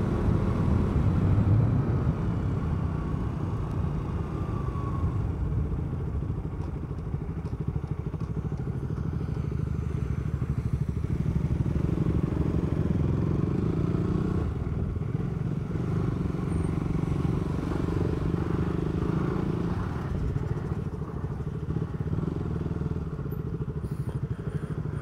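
Motorcycle engine running steadily under way, heard from the rider's seat, its note shifting a little with the throttle between about twelve and twenty seconds in.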